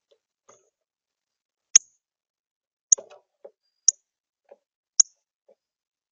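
Northern cardinal at a bird feeder: four sharp, high clicks about a second apart, with fainter soft taps in between.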